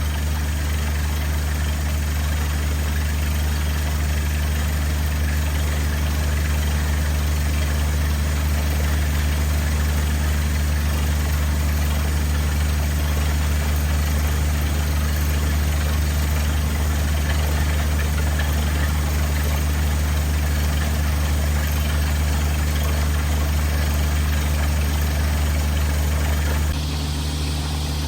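Engine of a water-well drilling rig running steadily, a deep even hum with overtones and a hiss above it. It drops a little in level shortly before the end.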